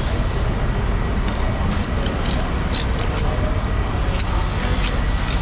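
Large knife cutting along a yellowfin tuna carcass, with a handful of short sharp clicks, over a steady low rumble of background noise.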